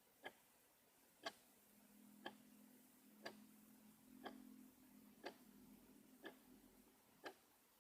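Clock ticking, one sharp tick about every second, evenly spaced. A faint low hum sits under the ticks through the middle part.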